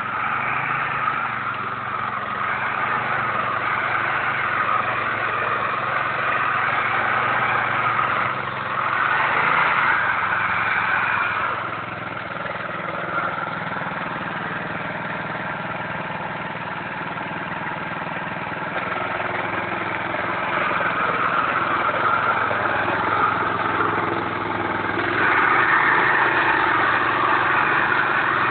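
Small air-cooled engine of a Robi 56 walk-behind tractor running steadily as it pulls a ridging plough through soil. It gets louder for a couple of seconds about a third of the way in, and again near the end.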